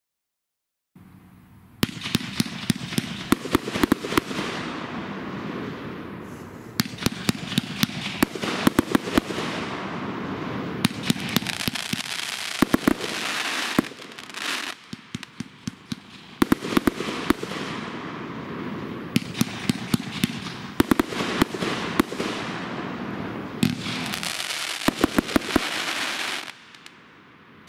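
A 30-shot consumer fireworks cake (Fisherman Power Surge) firing its shots one after another, each bursting into a dense rattle of sharp crackling cracks. It comes in several waves with short lulls, starting about two seconds in and stopping a second before the end.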